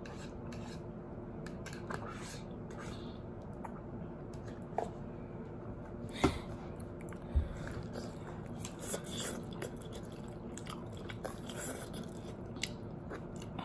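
A person chewing and eating instant noodles, with scattered small clicks and taps from handling a cup and utensil; two of the taps are sharper, about six and seven and a half seconds in.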